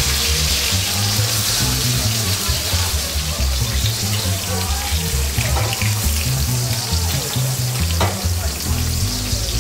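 Porterhouse steak sizzling in hot oil in a cast iron skillet as it is basted with spooned oil, with a couple of short sharp ticks past the middle and near the end. Background music with a steady bass line plays under it.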